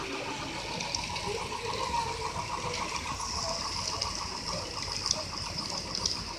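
HO-scale model diesel railcar running on its track: a steady small-motor whirr with wheel noise and light, even clicking, and a higher hiss joining about three seconds in.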